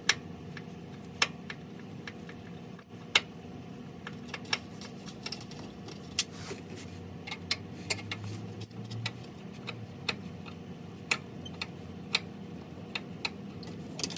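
Sharp, irregular metallic clicks and taps from a screwdriver working out the bolts and screws holding the cover under the engine, over a low steady hum.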